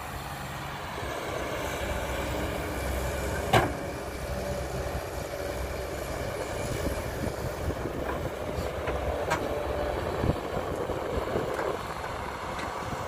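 Caterpillar hydraulic excavator's diesel engine running under load while it digs and swings, with one sharp metal clank about three and a half seconds in and a few lighter knocks later.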